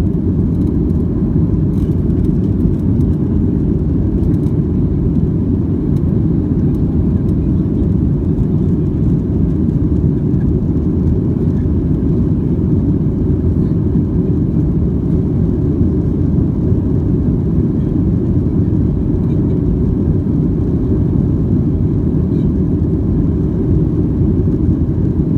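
Cabin noise of a Boeing 737-700 at takeoff thrust just after liftoff: its CFM56-7B turbofan engines and the rushing air give a loud, steady low rumble heard from inside the cabin.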